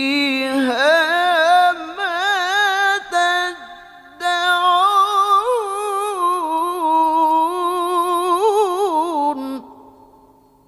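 Quran recitation: a single voice chanting the verse in long, ornamented held notes. It pauses briefly about four seconds in and stops near the end.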